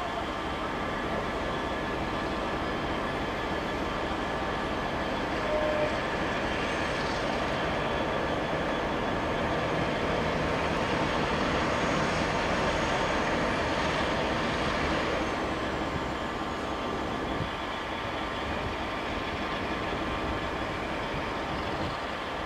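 Class 47 diesel locomotive, its Sulzer V12 engine running, hauling a rake of freight wagons past with a steady rumble of wheels on rail. It grows a little louder about halfway through, then eases off.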